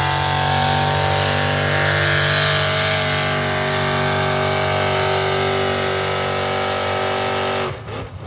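Pulling tractor's engine running hard at full throttle, hauling the weight-transfer sled, with a steady pitch; it cuts off suddenly near the end.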